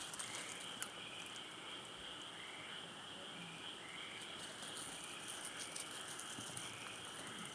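Faint insect chorus: a steady high drone with short chirps repeating roughly once a second.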